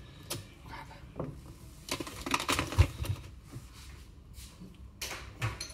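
Faint scattered clicks and rustles of small handling: children's scissors and a plastic rice bag being fiddled with. A faint voice murmurs for about a second, around two seconds in.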